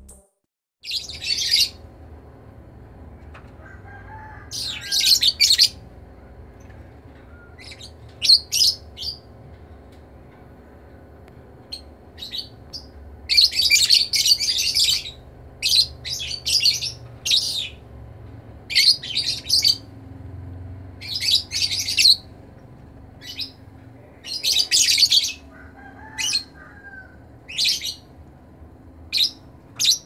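Lovebirds chirping in shrill bursts of a second or so, repeated again and again, with short pauses between them.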